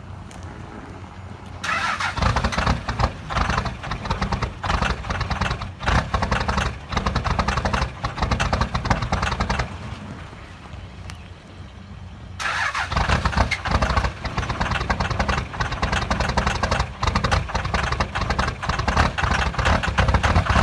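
2001 Dodge Ram's 24-valve Cummins inline-six diesel running rough and clattering after a cold start at 12 degrees without a block heater. The clatter rises to loud about two seconds in, eases off past the middle, then comes back loud.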